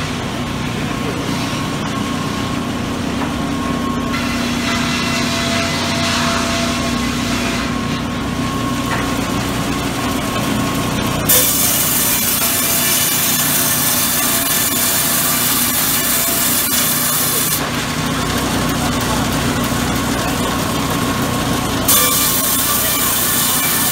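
Sawmill machinery running with a steady hum. About halfway through, the log carriage saw cuts lengthwise through a log with a loud hissing rasp. The rasp eases off for a few seconds and starts again near the end.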